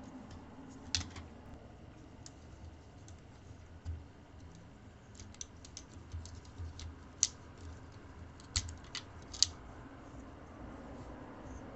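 Scattered light clicks and taps of a small screwdriver and small metal and plastic parts being handled inside a netbook as its Wi-Fi card is unscrewed and removed, heard over a faint steady hum.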